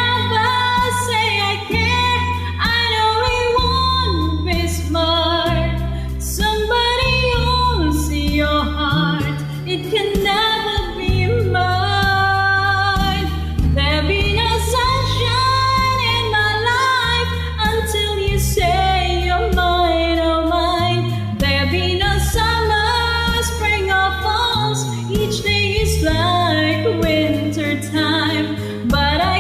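A woman singing a slow pop ballad over a backing track with a steady bass line and changing chords.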